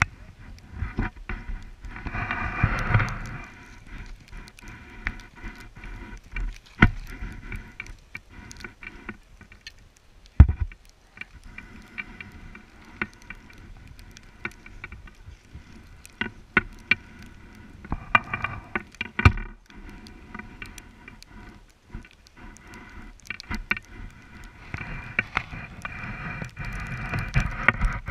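Skis sliding and scraping over snow, with many small knocks and clicks. The scraping gets louder in stretches: about two seconds in, around two-thirds of the way through, and near the end.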